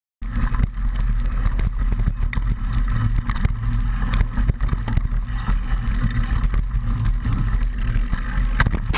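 Downhill mountain bike riding over a rough forest trail, picked up by a camera on a front mount: a loud, steady low rumble with irregular knocks and rattles from the bike jolting over the ground. It starts abruptly just after the beginning.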